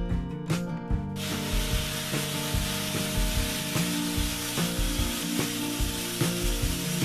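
Background music with a regular beat and plucked-guitar-like tones. About a second in, a steady hiss starts suddenly and continues over it.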